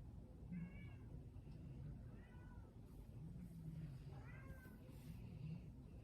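A cat meowing faintly, three short calls a second or two apart.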